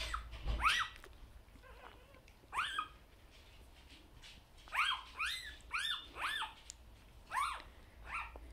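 Newborn vizsla puppies, less than a day old, squeaking while they nurse: about eight short, high whimpers, each rising then falling in pitch, most of them bunched together about halfway through.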